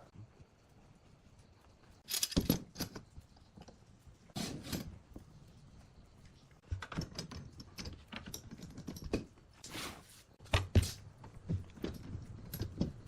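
Irregular knocks, taps and rattles of wood and tools being handled in a woodworking shop, coming in short clusters with quiet gaps between.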